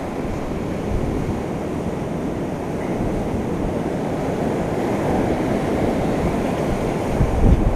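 Steady rushing of ocean surf, with wind rumbling on the microphone.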